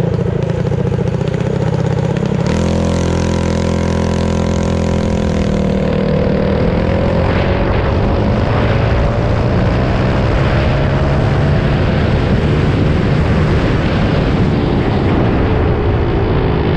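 Mini bike engine running hard under throttle while riding, its pitch climbing for several seconds and then dropping near the end, with wind rushing over the microphone.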